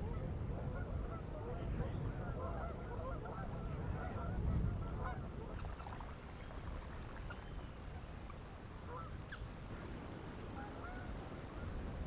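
A flock of waterbirds calling: many short, overlapping honking calls, busiest in the first half and thinning out later, over a low wind rumble on the microphone.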